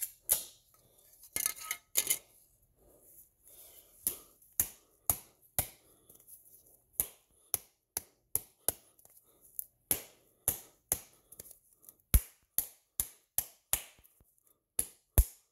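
A hand-held can opener working its way around the lid of a can of Spam, making short sharp clicks. The clicks are scattered at first, then settle into a steady run of two to three a second from about halfway in.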